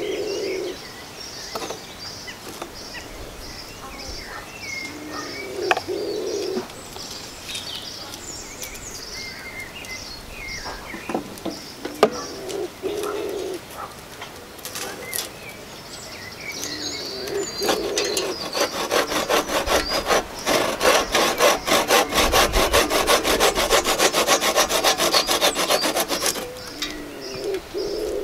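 Hand saw cutting through a thin branch: a few short bursts of strokes, then a steady run of fast back-and-forth strokes through the last ten seconds or so. Small birds chirp throughout.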